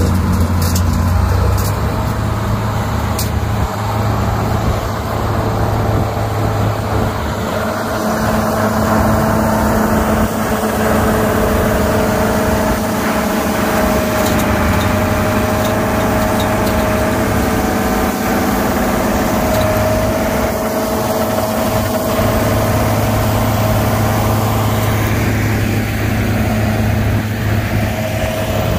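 5010 tractor's engine running steadily, with a constant even note.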